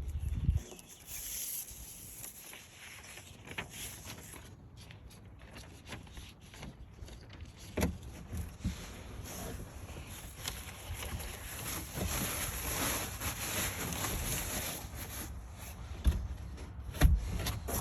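Cardboard packaging and parts being handled and rummaged through while unpacking a sawmill kit: irregular rustling with scattered light knocks and clicks.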